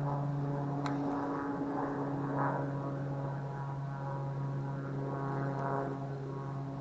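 A steady low engine drone, even in pitch, slowly fading, with one short click about a second in.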